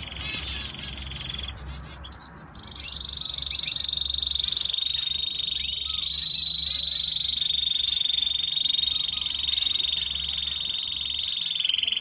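Canary singing a long, fast rolling trill, high and even, broken briefly about two seconds in and then held almost without pause.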